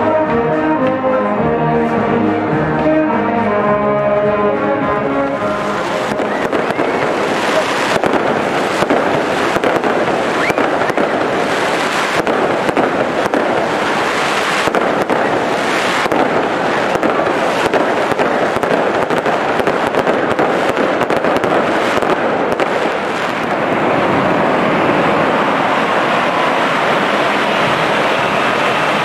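A brass band plays for the first few seconds. Then fireworks crackle and burst densely, and near the end there is a steady hiss from a row of ground fountains spraying sparks.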